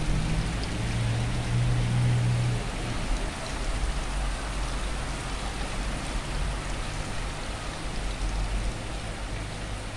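Steady rain falling, an even hiss of many drops. A low hum sits under it for the first few seconds.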